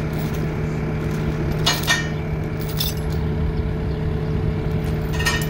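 Skid-steer loader engine idling steadily, with steel chain clinking and rattling a few times: about two seconds in, again a second later, and near the end.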